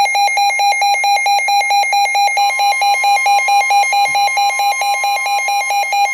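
Emergency Alert System-style electronic alert tone: loud, rapid beeping about six times a second at a steady pitch, with a second, higher tone joining a little over two seconds in.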